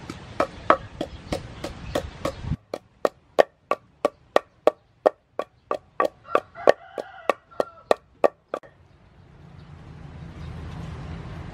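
Wooden pestle pounding chilies in a wooden mortar: steady knocks about three a second, stopping about eight and a half seconds in.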